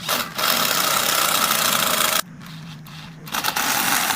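A power tool working wood, cutting loudly for about two seconds, dropping back to a quieter hum for about a second, then cutting again.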